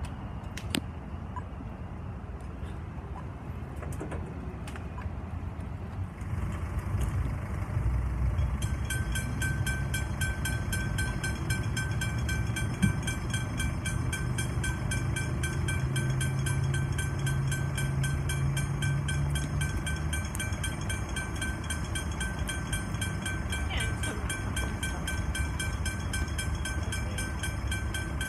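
Railway level crossing bell ringing in rapid, evenly repeated strikes, starting about a third of the way in, over the steady rumble of road traffic held at the crossing.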